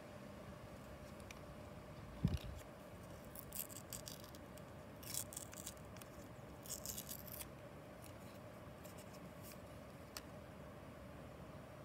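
A foil alcohol prep pad packet being torn open and crinkled by hand, in several short crinkly bursts spread over the first seven seconds, with a soft thump about two seconds in.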